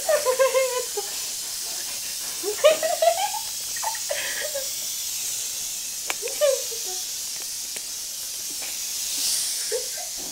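Aerosol hairspray can hissing without a break, its nozzle stuck open so it keeps spraying. The hiss swells slightly near the end, with a few short bursts of voices and laughter over it.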